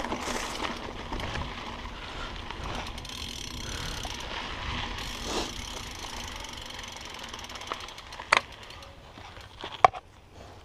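Mountain bike's rear freehub clicking rapidly as the bike coasts over a dirt trail, with tyre and trail rumble underneath. Two sharp knocks come near the end.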